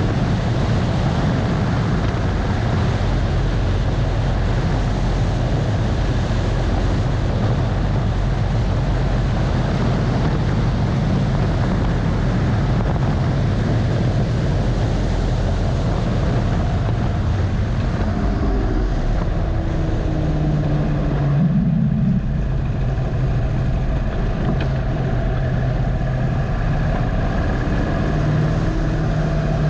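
2015 Harley-Davidson Dyna Low Rider's Twin Cam 103 V-twin running at speed under heavy wind rush. About two-thirds of the way through, the bike slows: the engine note falls, rises briefly, then runs lower and clearer as the wind dies down.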